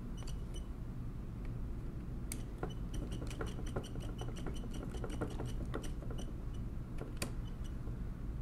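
Screwdriver turning small slotted steel screws into the metal keyboard frame of a 1920s Monroe mechanical calculator: a quick run of light metallic clicks through the middle, with a couple of sharper clicks about two and seven seconds in, over a low steady hum. The screws are being snugged gently rather than tightened hard.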